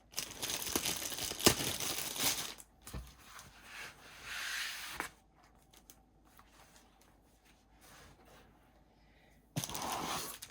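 Plastic packaging of a diamond painting kit crinkling and rustling as it is handled, with a few sharp crackles in the first few seconds. It goes quiet for a few seconds, then rustles briefly again near the end.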